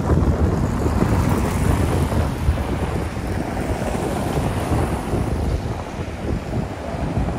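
Wind buffeting the microphone over the steady noise of cars driving past on a cobbled street.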